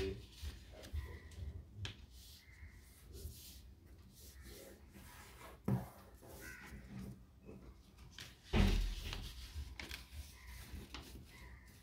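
Paper rustling and crinkling as a strip of origami paper is folded by hand and its crease smoothed flat against a table, with a knock near the middle and a louder thump on the table a few seconds later.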